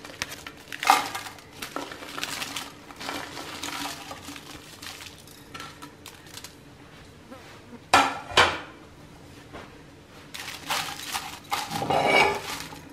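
Dried red chillies tipped into a non-stick frying pan and turned in it, clattering against the pan: a sharp knock about a second in, two more close together around eight seconds, then a busier stretch of clatter near the end.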